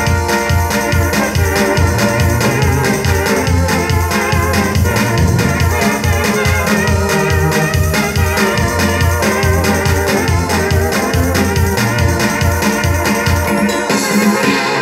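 Roland E-28 electronic keyboard playing a gospel chorus: held chords over a steady, regularly pulsing bass line. The bass drops out briefly just before the end.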